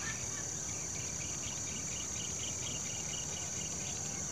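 Steady high-pitched drone of insects in riverside vegetation, with a run of short, quick chirps in the middle.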